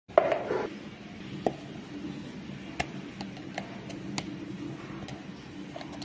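A plastic plant pot being picked up and handled: a clatter about a quarter second in, then scattered light clicks and taps of the plastic.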